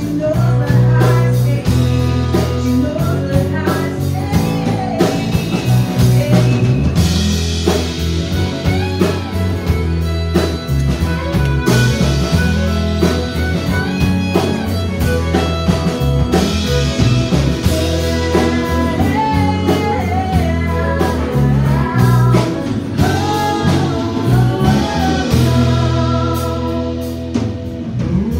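Live country band playing: a woman's lead vocal over acoustic and electric guitars, bass and drums, with a fiddle taking a bowed break partway through.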